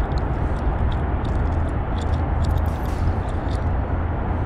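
Steady outdoor background noise with a low rumble, and faint light ticks scattered through it.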